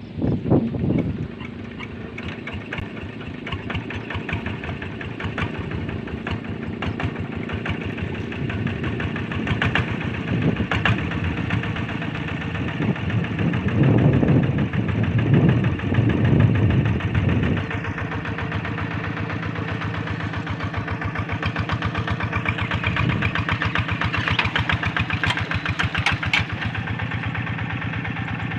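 Single-cylinder diesel engine of a rice-field hand tractor running with an even, rapid chugging beat. It gets louder for a few seconds about halfway through, then settles back to a steady idle.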